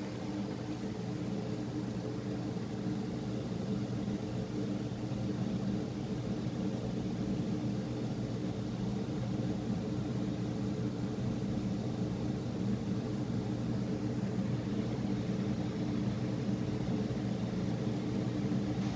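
A steady machine hum with a low drone made of several held tones, slowly growing a little louder.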